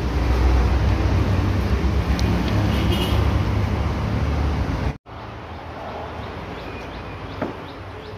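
Open-air background noise dominated by a heavy, fluttering low rumble of wind buffeting the microphone. After an abrupt cut about five seconds in it drops to a quieter outdoor ambience, with a light knock near the end.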